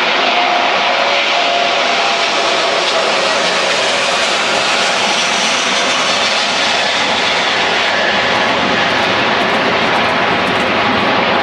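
Airbus A380's four jet engines, a loud, steady rush of jet noise that holds level throughout.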